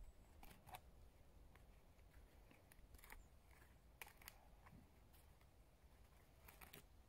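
Near silence with faint, scattered clicks and short scrapes, several in close pairs, from hands working tinder for a campfire.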